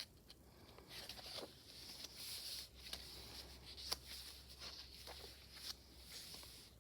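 Faint rustling of heavy journal pages being handled and turned, with a few soft taps.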